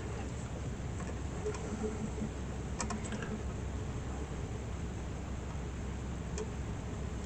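A few light clicks and taps from handling wire and soldering tools, a cluster about three seconds in and one more near the end, over a steady low hum.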